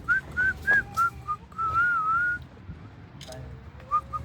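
Whistling: a quick run of short, clear notes, then a longer wavering note about two seconds in, and a few more short notes near the end.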